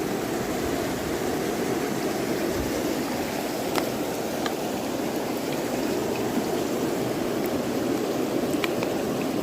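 Steady rushing water, with a few faint clicks.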